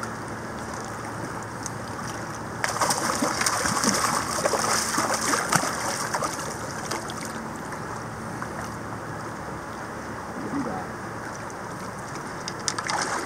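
River water running steadily. About two and a half seconds in, heavy splashing lasts several seconds as an Atlantic salmon is scooped into a landing net and thrashes in the shallows.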